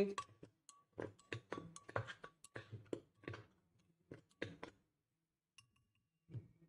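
A quick run of light knocks and taps as a glass blender jar holding ground dried plantain flour is handled and turned over, about three or four taps a second, stopping just before five seconds in; a couple of soft thuds come near the end.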